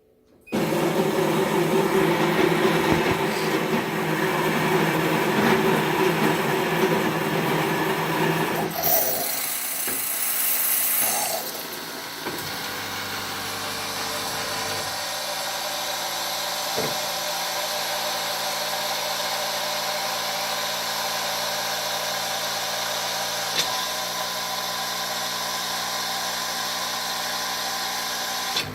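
Schaerer Vito bean-to-cup coffee machine making a large cappuccino. Its bean grinder buzzes for about eight seconds, then there is a short hiss, then a quieter steady hum of the pump for the rest, with a few light clicks.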